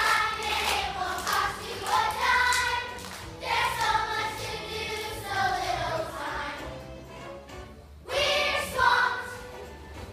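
A large group of young children singing together in phrases with short breaks, quieter for a moment about seven seconds in before the next phrase starts.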